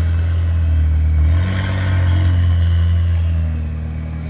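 McLaren 600LT's twin-turbo V8 running at low revs as the car pulls away slowly, the engine note lifting a little about a second and a half in and easing off near the end.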